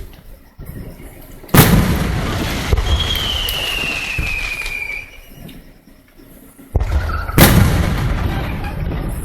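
Two fireworks shells bursting overhead, about six seconds apart, each a sudden loud boom trailing off into a long rumbling echo. Between them, a thin whistle slides slightly down in pitch for about two seconds.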